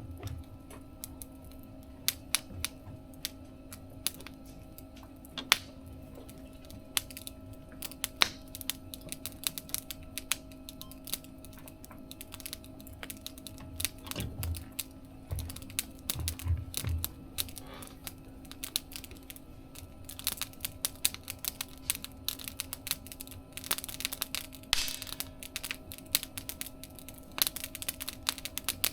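Wood fire crackling in a mesh fire stove: a steady stream of irregular sharp snaps and crackles, growing busier in the last third.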